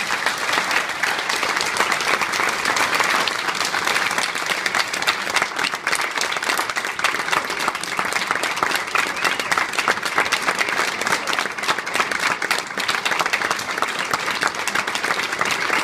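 An audience applauding: dense, steady clapping from many hands.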